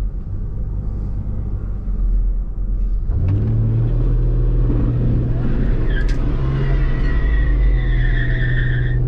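Holden VL Commodore's RB30 straight-six idling in first gear against the brake, then revved hard about three seconds in and held for a burnout. From about six seconds the rear tyres squeal steadily for a few seconds: a burnout that only just comes off.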